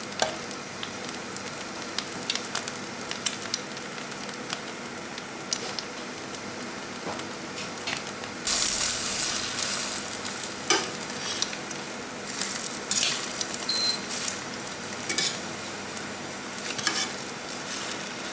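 Egg-dipped banana bread rolls frying in a pan, sizzling steadily, with scattered clicks of metal tongs against the pan. About halfway through the sizzle jumps suddenly louder and then slowly eases, as the rolls are turned over with the tongs.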